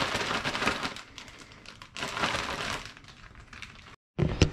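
Plastic zipper bag rustling and crinkling as fish fillets are shaken in seasoned flour, in two bouts of shaking. Near the end, after a brief dropout, there is one sharp knock.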